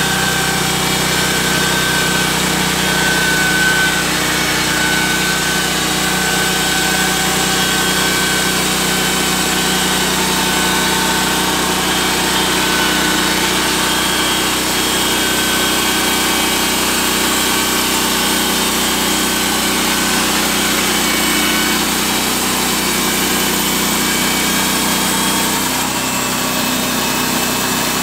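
Harbor Freight bandsaw sawmill running steadily, its gasoline engine under load as the band blade saws lengthwise through a clamped stack of boards.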